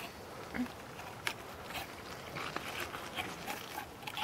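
Knife working through a large raw salmon on a wooden cutting board: faint, irregular clicks.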